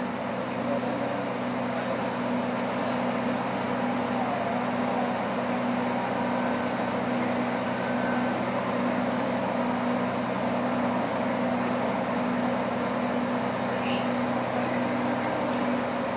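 Steady running sound heard inside the cabin of a moving KRDE diesel-electric railcar: a constant low hum under an even rolling rumble.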